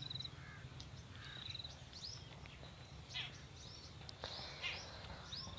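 Birds chirping: short high calls, some of them quick trills, a couple of times a second, over a faint low rumble.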